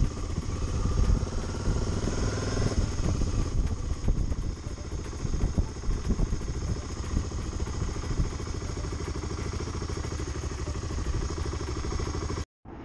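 Motorcycle engine running steadily as the bike rides along, with a low rumble. It cuts out abruptly for a moment near the end.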